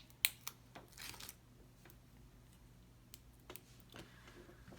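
Small packaging being handled and opened: a few sharp plastic clicks, the loudest about a quarter second in, and a brief crinkling rustle about a second in, as plastic wrap is worked off a roll of washi tape.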